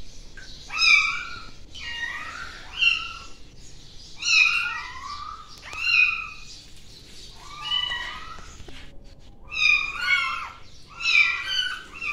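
Very young kitten mewing over and over while being held and bathed: high-pitched cries about one a second, with a brief pause about three-quarters of the way through.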